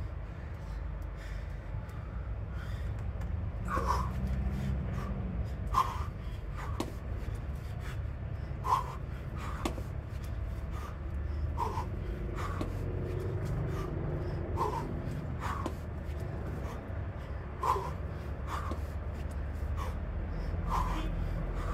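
A person breathing hard from exertion, with short forceful exhalations that come in pairs about every three seconds, paced with exercise repetitions.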